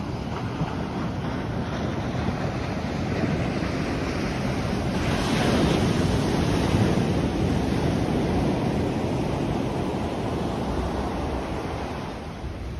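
Ocean surf breaking and washing up a sandy beach at high tide, a continuous rush that swells to its loudest about five seconds in and eases off near the end.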